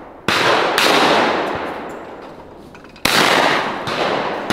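20-gauge shotgun shots fired at clay targets in two quick pairs, the shots in each pair about half a second apart. A final shot comes right at the end. Each report is sharp and dies away over about a second.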